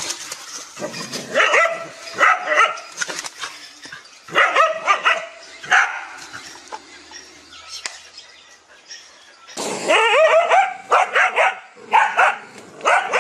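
Dog barking at a monitor lizard in three bursts of quick, sharp barks, the last burst the longest.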